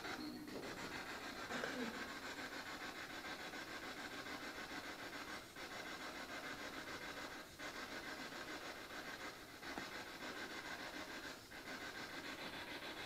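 Steady radio static with a fast flutter, broken by brief drop-outs about every two seconds: a ghost-hunting spirit box sweeping through radio stations.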